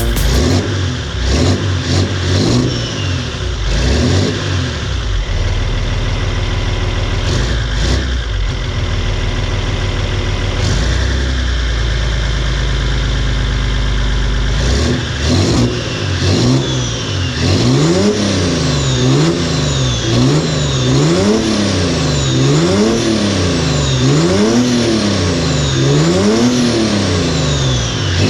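BMW M57 3.0 straight-six turbodiesel with a custom-fabricated exhaust manifold and GT2260V turbo, being revved. In the second half it is blipped over and over in a regular rhythm, the pitch rising and falling about every one and a half seconds.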